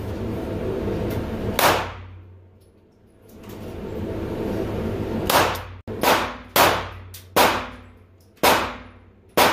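Seven pistol shots in an indoor range, each with a short echoing tail: a single shot early, then a pause, then six shots in quicker succession, roughly one every second.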